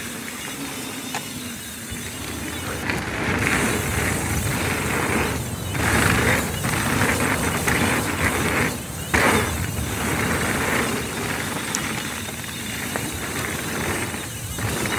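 Mountain bike riding along a dirt flow trail: tyres rolling and the bike rattling over the surface, a steady rushing noise that swells and eases with the terrain and drops out briefly a few times.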